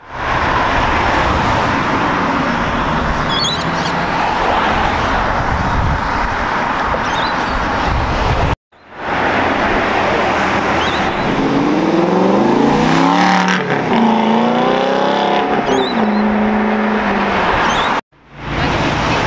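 Cars driving past on a city street, in three short clips split by abrupt cuts. In the middle clip an engine accelerates hard, its pitch climbing and dropping again several times as it changes gear.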